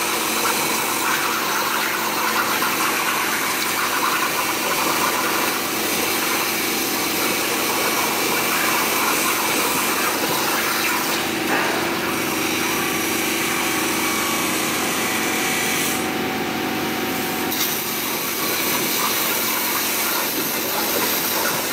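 CNC plasma cutter's torch cutting through a metal sheet: a steady loud hiss of the plasma arc and its air stream, with the highest part of the hiss thinning briefly twice.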